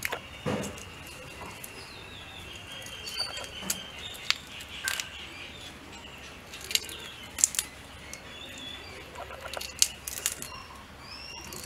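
Raw prawns being peeled by hand: scattered small clicks and crackles as the shells are pinched and pulled off. Birds chirp in the background, most clearly near the end.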